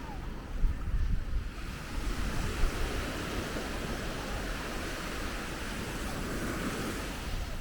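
Ocean surf washing onto the beach. The hiss of a breaking wave swells about two seconds in, over a steady low rumble of wind on the microphone.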